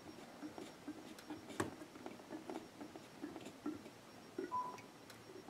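Faint, scattered clicks and ticks of fingers turning the spring-loaded mounting nuts of an EK Supremacy CPU water block, tightening it down onto the CPU in a cross pattern. One sharper click comes about a second and a half in, and a brief squeak about four and a half seconds in.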